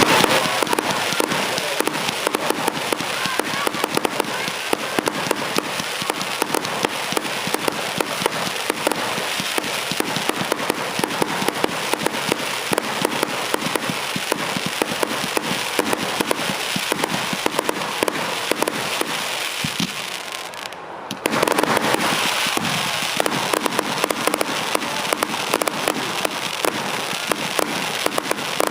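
Fireworks display with a dense, continuous crackling of many small pops. It dips briefly about twenty seconds in, then resumes louder.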